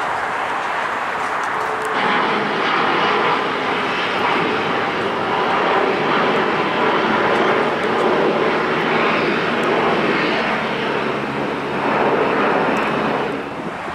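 Jet engine noise from a Boeing 737 MAX 9 with CFM LEAP-1B engines on its landing rollout, loud and steady. It comes up about two seconds in, after a quieter stretch of engine noise from a taxiing Boeing 747, and eases off near the end.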